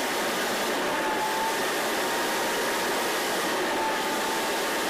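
1-horsepower plastic centrifugal blower running, a steady rush of air being drawn hard into its intake grille, with a faint whine that wavers slightly in pitch.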